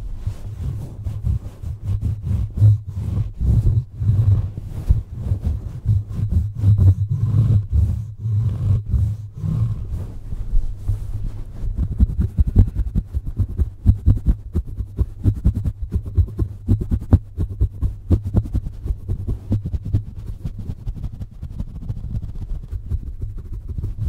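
Fluffy cloth rubbed and scrunched directly over a microphone: a continuous low rumbling rub with rapid scratchy crackles.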